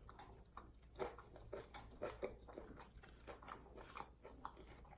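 A person chewing and biting fried food close to the microphone: faint, irregular wet clicks and mouth noises.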